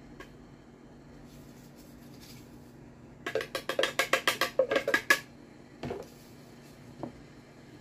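Rapid run of light plastic taps, about seven a second for two seconds, as crumble topping is knocked and scraped out of a plastic measuring cup with a silicone spatula. Then a single knock as the cup is set down, and another lighter knock near the end.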